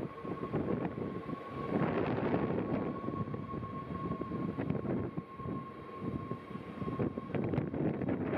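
Two coupled NS Sprinter Lighttrain (SLT) electric multiple units running past along the platform, wheels rumbling on the rails. A thin steady high whine sounds over the rumble until about a second before the end.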